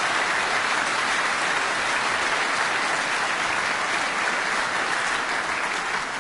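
Audience applauding steadily, starting to die away near the end.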